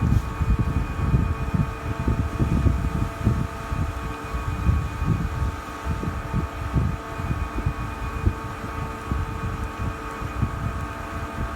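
Steady machine hum made of several held tones, over an uneven low rumble on the microphone.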